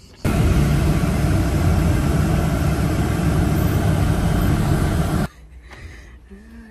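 Loud, steady motor-vehicle rumble and hiss, heaviest in the low end, that starts and cuts off abruptly, lasting about five seconds.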